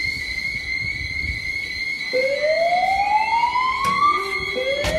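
GST-IFP8 fire alarm system sounding on test: a steady high-pitched alarm tone, joined about two seconds in by a rising whoop that sweeps upward over about two seconds and starts again near the end. The whoop is the slow-whoop evacuation tone of a voice alarm.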